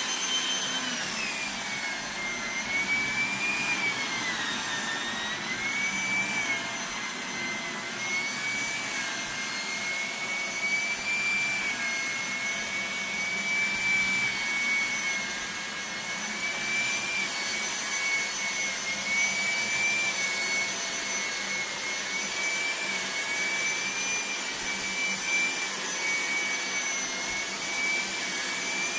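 Electrolux ZAP9940 vacuum cleaner running at its maximum speed setting: a steady motor whine over rushing air. The whine drops in pitch in the first couple of seconds, wavers slightly, then holds steady.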